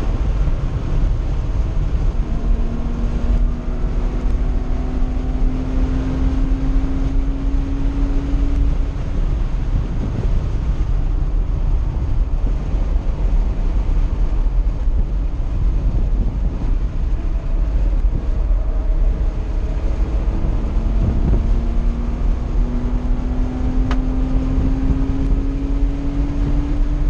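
Air-cooled 3.0-litre flat-six of a 1982 Porsche 911SC with SSI headers and a Dansk 2-in-2-out muffler, running hard at track speed and heard from inside the cabin over heavy wind and road noise. Its pitch climbs slowly twice as the car accelerates, once in the first third and again near the end.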